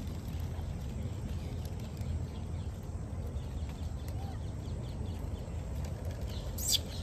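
Steady low outdoor rumble, with one short, shrill high-pitched squeak near the end.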